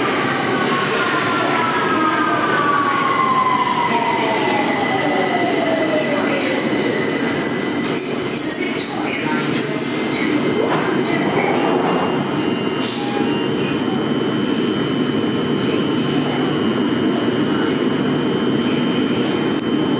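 Steady rumbling hum of a London Underground Victoria line 2009 Stock train standing at the platform with its doors open. A whine falls in pitch over the first several seconds, and a few faint high steady tones come in later.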